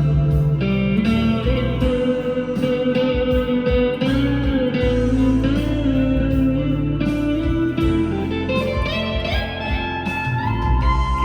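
PRS SE 245 electric guitar with humbucker pickups, played through an amp's clean channel with reverb and delay: a lead line of sustained notes, some of which glide in pitch, one rising slowly near the end.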